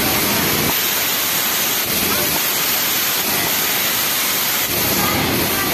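Steady, even noise of a garment factory sewing floor, with industrial sewing machines running, and faint voices in the background.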